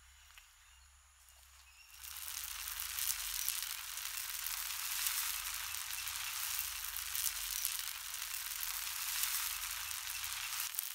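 Rice noodles sizzling as they are stir-fried in a hot wok over a wood fire: a dense crackling hiss that starts suddenly about two seconds in.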